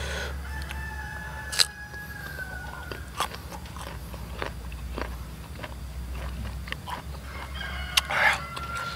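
Raw young mango slices crunched and chewed close to the microphone: crisp, sharp crunches scattered through steady chewing, the loudest a little over a second and a half in and near the end.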